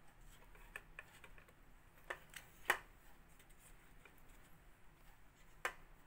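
A few light clicks and taps as leaf-wrapped jackfruit ada parcels are set down and shifted on a perforated metal steamer plate; the loudest comes about two and a half seconds in, with another near the end.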